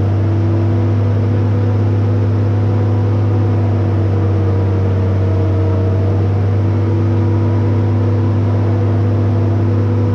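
Travel lift's engine running steadily: a loud, even deep hum with a few steady higher tones over it.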